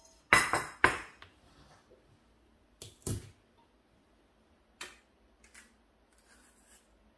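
A plastic tray with a wire rack is set down on a countertop, clattering twice in quick succession. A few lighter knocks and a click follow as a banana is handled and pulled from its hanger.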